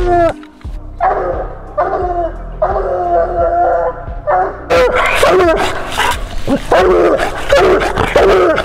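Bluetick coonhound baying at the tree: a few long, drawn-out bawls, then from about halfway in a quicker run of shorter chop barks. This is a hound's tree bark, the sign that it has an animal treed.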